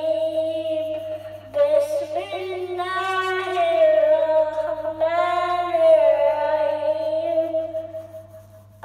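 A young boy chants a devotional recitation without accompaniment, in long held, wavering notes, into a handheld karaoke microphone. There is a brief breath-break about a second and a half in, and the voice trails off near the end.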